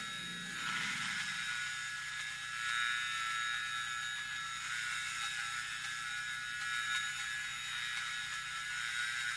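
Experimental electronic noise drone: a dense, steady hiss layered with many held high tones, with a low hum fading out in the first second or so.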